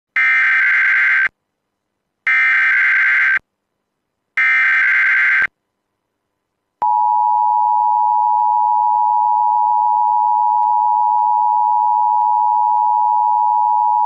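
Emergency Alert System signal: three one-second bursts of SAME header data tones, each followed by about a second of silence, encoding the start of a required weekly test. Then, from about seven seconds in, the steady EAS two-tone attention signal.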